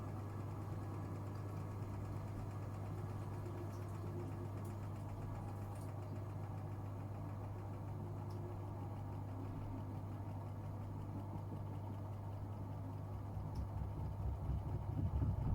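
Gorenje UseLogic 65165 front-loading washing machine running mid-cycle with a steady low hum. About 13 seconds in, a louder, uneven low rumble builds up.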